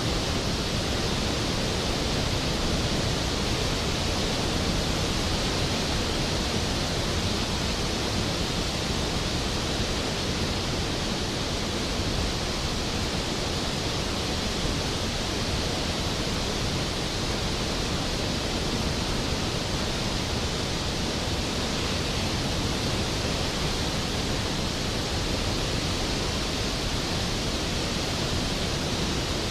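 Skógafoss waterfall's heavy fall of water: a steady, dense rush with no change.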